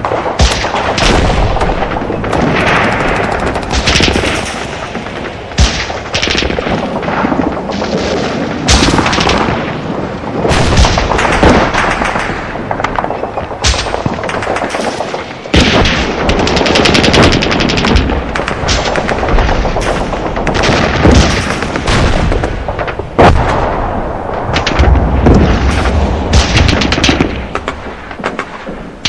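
Battlefield gunfire: machine-gun bursts and single shots cracking over one another throughout, with stretches of low rumble underneath.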